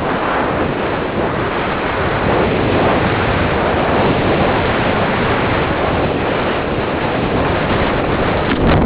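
Steady rush of air over the onboard camera of a radio-control slope glider flying low and fast, ending in a sudden loud knock as it reaches the grass.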